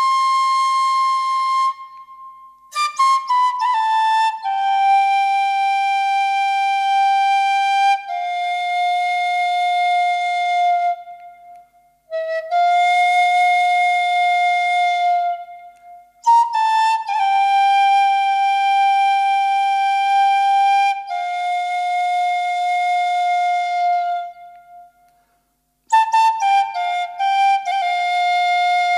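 Bansuri, the Indian bamboo transverse flute, playing an unaccompanied Moravian folk melody slowly: each phrase opens with a quick ornamented run of notes and settles into long held notes, with short breaks for breath between phrases.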